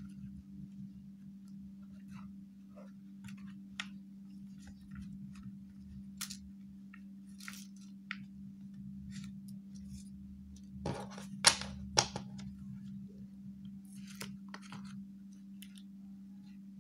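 Stacks of paper cards being flicked through, tapped and slotted into a plastic desk organiser: scattered light taps and rustles, with a short cluster of louder knocks about two-thirds of the way through, over a steady low hum.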